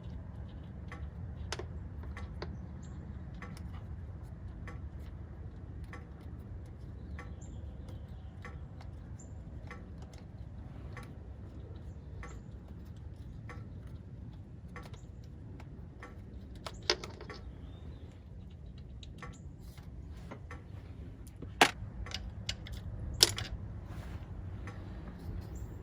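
Hand tools on engine hardware: scattered light clicks and metal clinks of a 10 mm socket wrench working bolts loose, with three louder sharp clinks in the second half, over a steady low hum.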